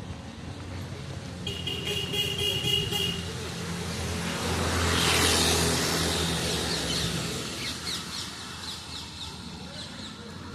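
A road vehicle sounds its horn briefly, then passes close by, its engine and tyre noise swelling to a peak about halfway through and fading away. Birds chirp in quick repeated notes after it has gone.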